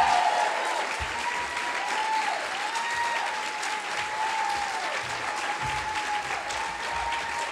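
Audience applauding the panel guests' arrival on stage. Under the clapping, a thin, held high tone dips briefly in pitch about once a second.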